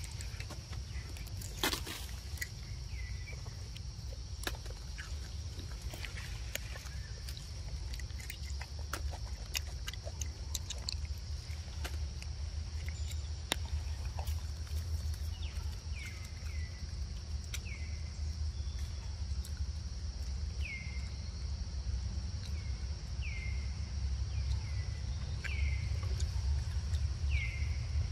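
Outdoor ambience: a steady, high insect drone over a low rumble, with scattered sharp clicks. From about halfway on, a series of short descending chirps comes roughly once a second.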